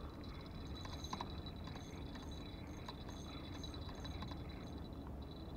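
Faint, quick ticking of a spinning reel being cranked to retrieve the line, several ticks a second, over a low steady rumble.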